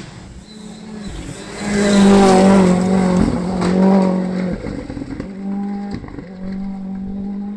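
Rally car engine held at high revs on a gravel forest stage, one steady note with a few short breaks where it lifts off or changes gear; loudest about two to four seconds in.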